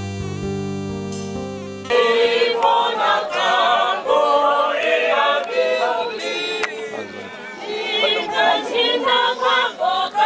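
Instrumental music with long held keyboard-like notes for about two seconds, then a sudden switch to a choir of mixed voices singing without accompaniment.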